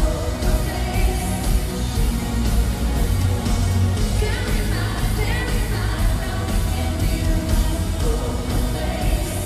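Live pop music from a concert, a singer over a loud band with heavy bass, recorded on a Zoom Q3HD handy video recorder's stereo microphones.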